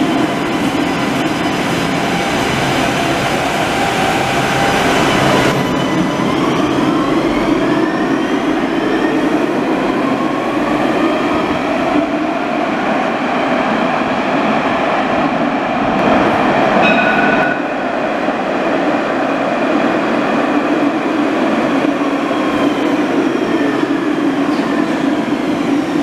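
Alstom Citadis trams moving through an underground station: one pulling away and another running in from the tunnel. The traction motors whine, gliding up and down in pitch over steady wheel rumble and some wheel squeal, echoing in the tunnel. A brief tone sounds about seventeen seconds in.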